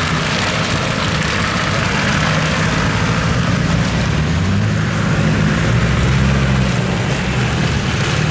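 Land Rover Discovery 2's TD5 five-cylinder turbodiesel running at low revs while crawling off-road. The engine note lifts a little about midway, over a steady rushing hiss.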